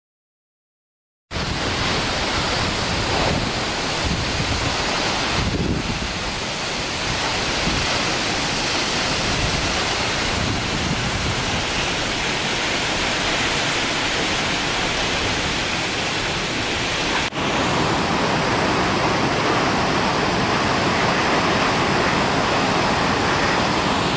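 Steady rush of a large waterfall, a dense even noise of falling water that starts abruptly about a second in. It breaks off for an instant past the middle and carries on.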